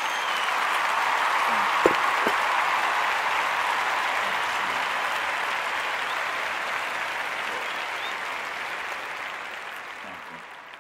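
Crowd applause that swells in the first couple of seconds and then slowly fades out toward the end, with a single brief click about two seconds in.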